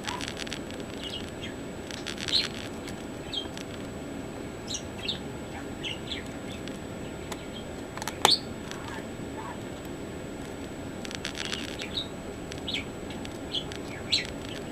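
Short, high bird chirps scattered throughout, over clicks and rattles of the netbook's memory compartment cover being fitted back on, with one sharp, loud click about eight seconds in.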